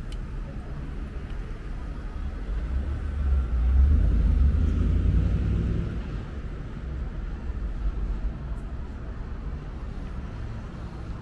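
Low engine rumble of a passing motor vehicle, swelling about three seconds in and fading again by six seconds, over a steady outdoor city background.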